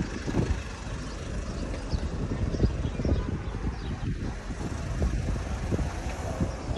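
City street traffic: a steady rumble of cars moving and idling, with short irregular low knocks throughout.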